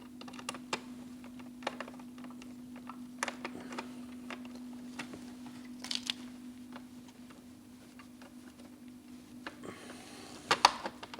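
Screwdriver driving the long fixing screws of a telephone socket faceplate into its back box: scattered small clicks and scrapes of metal on screw and plastic, with a louder cluster of clicks near the end, over a steady low hum.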